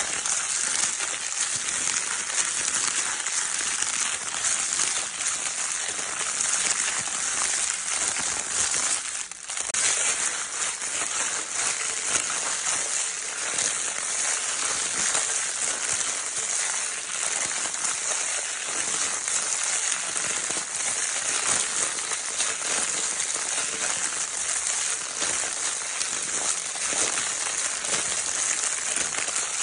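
Baby crinkle paper toy being crinkled continuously: a dense, steady crackling rustle, mostly high-pitched, with a brief lull about nine seconds in.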